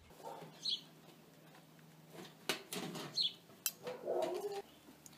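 Birds chirping, with a handful of sharp clicks and knocks from handling around the metal smoker near the middle.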